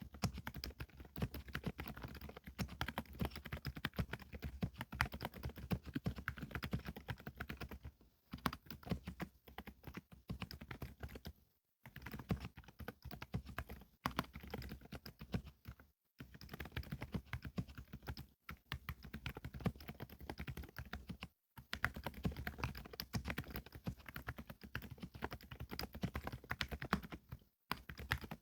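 Continuous typing on a Qsenn Q104LCD Shooting Star full-size keyboard fitted with MMD silent Princess switches (32 g actuation) and Cherry-profile keycaps: a steady stream of quick keystrokes, broken by a few brief pauses.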